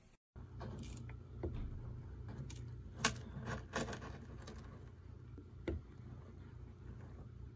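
A tortoise digging its nest hole with its hind legs: scattered clicks and scrapes of pebbles and gritty soil, the sharpest about three seconds in, over a steady low hum.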